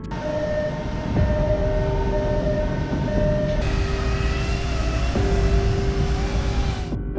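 Heavy industrial machinery noise, a steady rumble and hiss with a tone that keeps switching on and off, under background music. The machinery sound changes character about three and a half seconds in.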